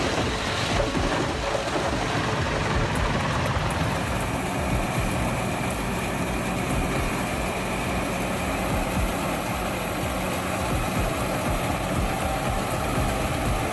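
Heavy machine's engine running steadily with a constant low hum.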